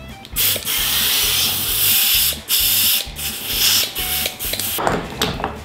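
Compressed air hissing from a shop air-hose inflator chuck as it fills a wheelbarrow tire's inner tube through the valve stem, in several long bursts with brief breaks, followed near the end by a shorter, lower, rougher noise.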